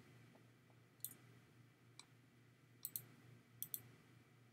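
Computer mouse clicking against near silence: single clicks about one and two seconds in, then two quick pairs of clicks near the end, over a faint steady low hum.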